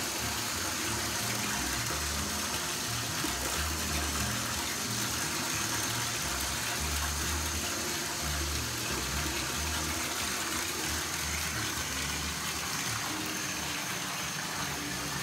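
Water running steadily from a bathtub faucet and splashing over a trombone slide held under the stream as it is rinsed.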